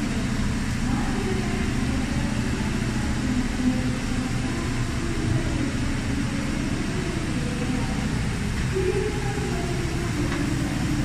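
Steady low rumble of distillery machinery running in a tequila fermentation hall, with faint voices in the background.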